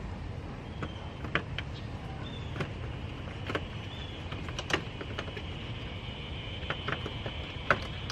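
Scattered light clicks and knocks of hands working plastic clips and wiring connectors down in a car's engine bay, about one every second, over a steady low rumble.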